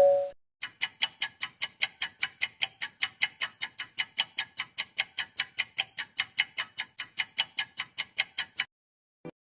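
Clock-ticking sound effect: even, rapid ticks, about five a second for some eight seconds, stopping suddenly, followed by one faint click near the end.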